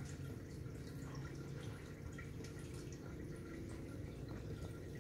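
Aquarium aeration bubbling: a stream of air bubbles rising and popping in the water as many small, irregular drips and ticks, over a steady low hum.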